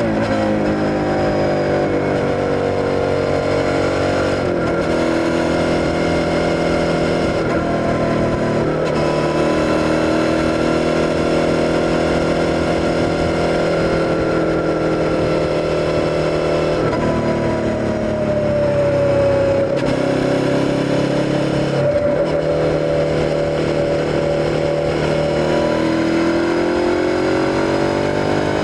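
Suzuki SV650's V-twin engine running under way. Its note falls at first, holds fairly steady with a few brief breaks where the pitch jumps, then rises as it accelerates near the end.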